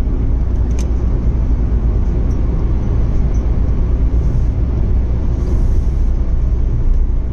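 Steady low rumble of tyre, road and engine noise inside a car's cabin while cruising on an expressway.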